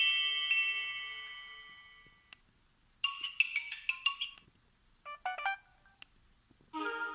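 Samsung GT-C3590 mobile phone default message or alarm tones, played one after another. A bell-like electronic chime at the start rings out and fades over about two seconds. It is followed by three short bursts of bright electronic notes, about three, five and seven seconds in.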